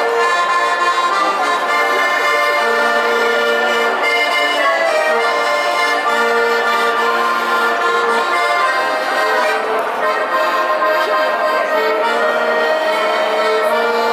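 Accordion playing a slow tune in long held notes and chords.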